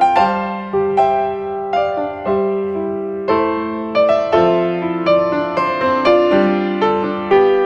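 Background music: a slow piano melody, notes struck about once or twice a second and left to ring and fade.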